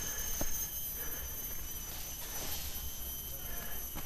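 Mountain bike rolling down a leaf-covered dirt trail: a steady low rumble with a few sharp knocks, about half a second in and near the end, over a steady high insect buzz from the forest.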